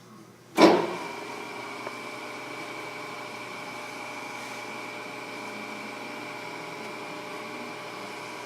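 Kent KGS-63AHD surface grinder's 5 hp spindle motor switched on with a sharp clunk about half a second in, then running steadily with a whine as it spins the grinding wheel.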